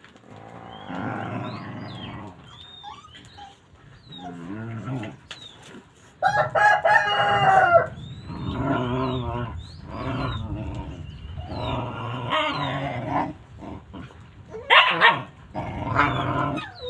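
A dog vocalising in a series of long, drawn-out, wavering whines and howls, the loudest about six to eight seconds in.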